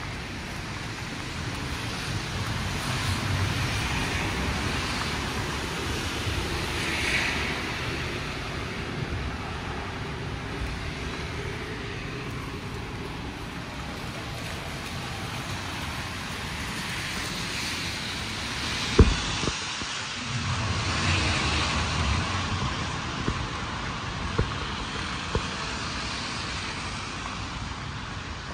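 City street traffic: a steady background of cars, swelling twice as vehicles pass. About two-thirds of the way through there is a single sharp knock, followed by a few fainter clicks.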